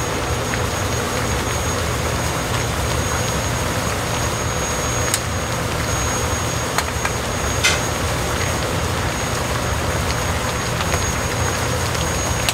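Samgyetang broth boiling hard in earthenware pots over gas burners: a steady rushing, bubbling noise with a low rumble, and a plastic ladle clicking lightly against the pot a few times.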